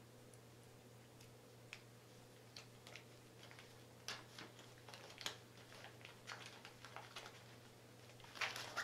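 Faint crinkling and rustling of plastic bags and wrapped medical packets as hands sort through a first-aid kit. Scattered small clicks grow into louder crinkles about four to five seconds in and again near the end.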